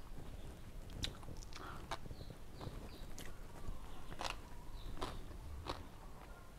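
Close-miked chewing of a mouthful of som tam (shredded green papaya salad): sharp, wet crunches and mouth clicks at uneven gaps of about a second.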